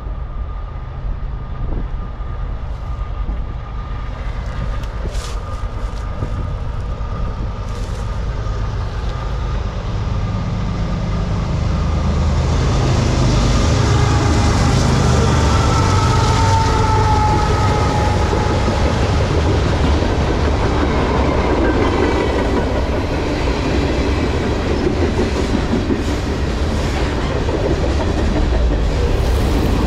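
CSX freight train led by GE diesel locomotives approaching and passing at about 36 mph: a low engine rumble builds and is loudest about halfway through as the locomotives go by, with a brief whine, then the cars roll past with a steady rumble of wheels on rail.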